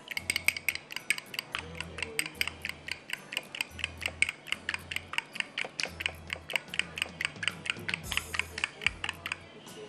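A fork beating a raw egg in a small glass bowl: quick, even clinks of metal on glass, about five or six a second, stopping just before the end.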